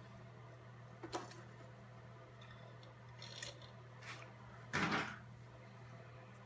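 A few separate clicks and knocks, the loudest a short thump just before five seconds in, over a steady low hum: handling at a Cobra Class 3 leather sewing machine around a test sew, not the machine stitching.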